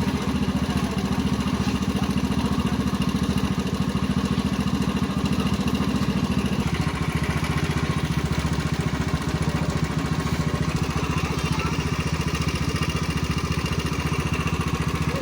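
A small engine running steadily, its pitch dropping slightly about seven seconds in.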